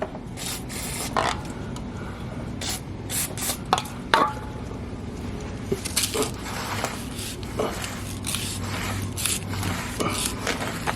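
Irregular short scraping and rubbing strokes: surface rust being wiped off the metal of a car's underside with a microfiber cloth and brake cleaner.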